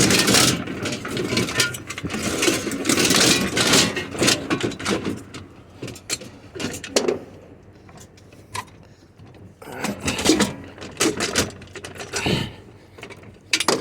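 Irregular knocking, scraping and rattling as scrap items are shifted and rearranged by hand, busiest in the first few seconds and again about ten seconds in.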